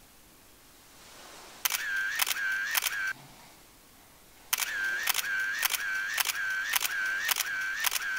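Camera shutter sounds repeating about twice a second, each a sharp click with a short high whir. There is a short run about one and a half seconds in and a longer run from about four and a half seconds on.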